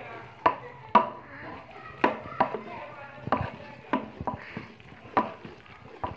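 A wooden utensil knocking against the side of a metal cooking pot as the mustard greens are stirred, about nine sharp, irregular knocks.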